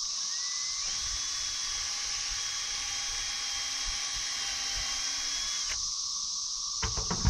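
Power drill spinning up and driving a screw into a wooden rafter, running steadily for about five seconds and stopping abruptly. A few sharp knocks follow near the end.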